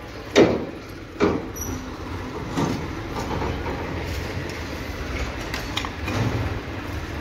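Metal shovel blades digging into dry, stony earth: two sharp strikes, about half a second and a second and a quarter in, then lighter scrapes and knocks, over a low steady rumble.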